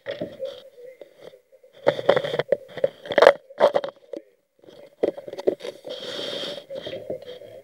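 Close-up handling noise: irregular scraping, rustling and clicking bursts right at the microphone as the phone is moved and rubbed about, over a faint steady hum.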